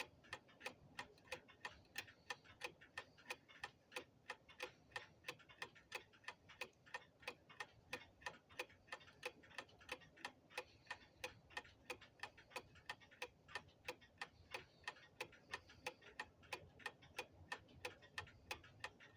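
Deadbeat escapement of a 1904 Ingraham mantel clock movement ticking evenly, about three ticks a second, with the movement running smoothly.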